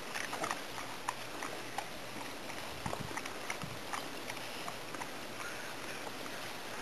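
Bulldog nosing through pea vines and biting at the pods: scattered crackles and snaps of leaves and stems over a steady hiss.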